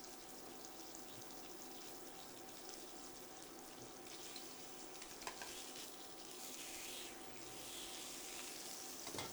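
Atlantic salmon fillet searing in hot canola oil, a faint, steady sizzle that swells a little past the middle.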